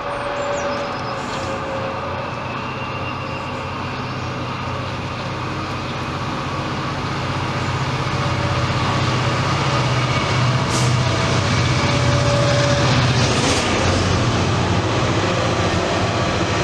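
Class 66 diesel locomotive's two-stroke V12 engine running steadily as it hauls a loaded aggregate freight train toward and past, growing louder as it nears. The rumble of the loaded wagons on the rails follows near the end.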